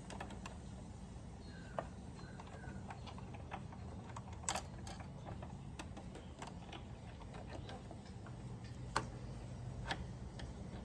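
Scattered small clicks and taps of sewing machine parts being handled and fitted back onto the machine, over a low steady hum.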